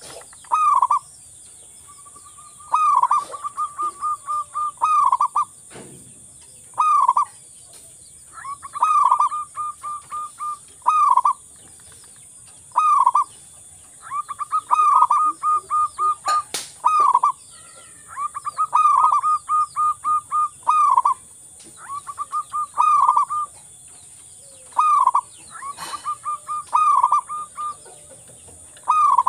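Zebra dove (local perkutut) singing over and over: each phrase is a run of rapid short coos and a longer falling coo, repeated about every second or two.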